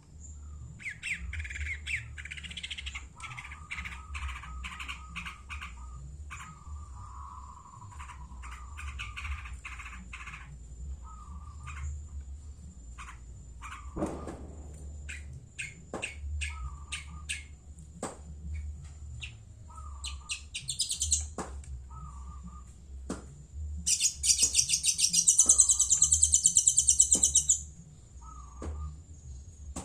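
Long-tailed shrike (cendet) singing actively in a string of varied short chirps and clicky notes. From about two-thirds of the way in, it gives a loud, rapid, harsh chattering call lasting a few seconds, the loudest sound here.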